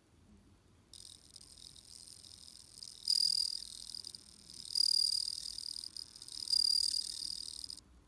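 Japanese bell cricket (suzumushi) male singing by rubbing its raised wings: a high, ringing trill that starts about a second in, swells into three louder phrases, and stops shortly before the end.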